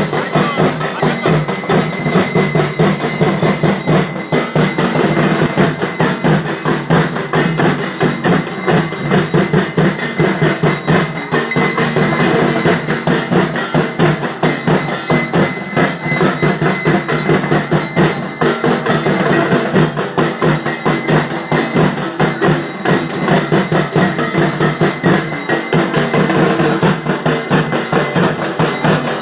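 Fast, continuous ritual percussion of an arati: drums beaten rapidly with metal bells ringing steadily over them.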